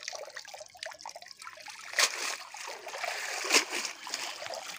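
Water splashing and dribbling off a cast net as it is hauled up out of a muddy pond. There is a sharp splash about two seconds in and a louder one about three and a half seconds in.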